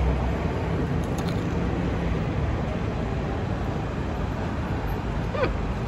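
Steady road traffic noise from passing cars, mostly a low rumble.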